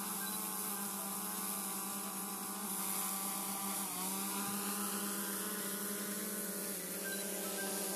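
DJI Mavic 2 Zoom quadcopter's propellers humming steadily as it hovers and descends toward its landing pad. The pitch shifts about halfway through and again near the end as the motors change speed.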